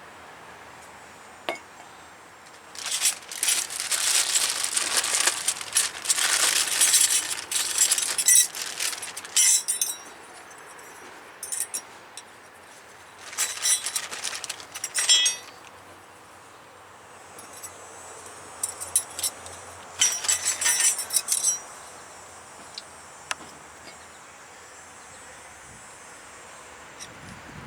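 Metal brake parts clinking and rattling as they are handled: disc brake pads and caliper hardware being taken apart and refitted. The clinking comes in three spells, the longest near the start and two short ones later.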